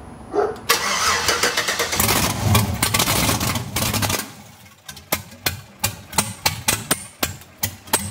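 Chevy Silverado's 5.3 LS V8, with open turbo headers and no turbos fitted, cranks and fires, running loud and rough for about three seconds before dying. A string of sharp pops, about two to three a second, follows near the end. It is running with one spark plug wire off, so one cylinder is dead.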